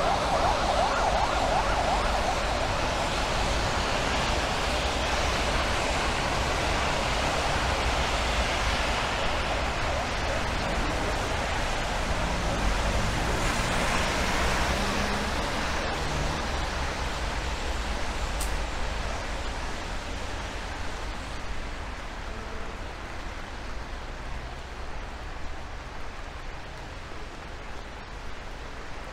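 Rain and traffic on a wet city street: a steady hiss of tyres on the wet road. It is loudest in the first half and fades gradually over the second.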